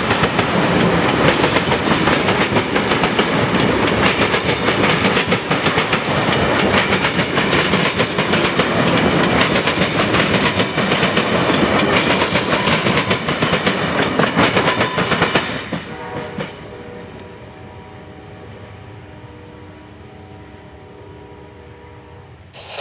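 Amtrak passenger cars passing close at speed: a loud rumble with rapid clickety-clack of wheels over the rail joints. After about fifteen seconds the last car clears and the noise drops away, leaving a distant train horn sounding a long steady chord.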